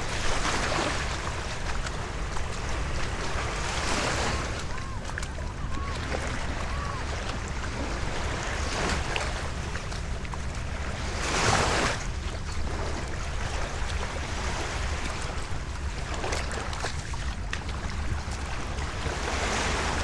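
Small lake waves washing onto a sandy shore, a soft rush every few seconds, the biggest about eleven and a half seconds in. Under it is a steady low rumble of wind on the microphone.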